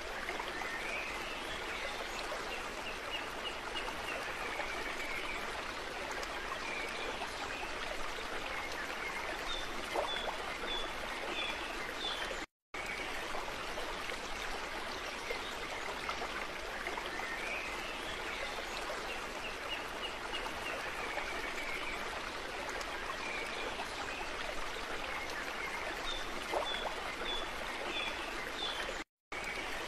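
Steady sound of running water like a flowing stream, with faint high chirps over it. It is a looped nature-sound track that cuts out briefly twice.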